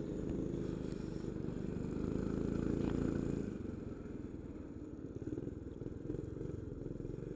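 Coleman CT200U minibike's small single-cylinder four-stroke engine running under throttle, then easing off about three and a half seconds in.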